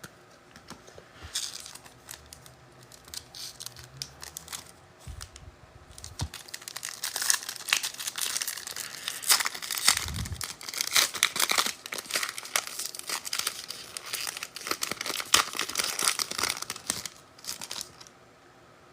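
Trading card pack wrapper being torn open and crinkled by hand, with rustling and crackling that grows busier after the first few seconds and dies away near the end.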